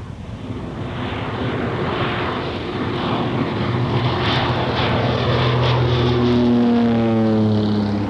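Propeller plane's engine droning, growing steadily louder, with its pitch dropping over the last couple of seconds.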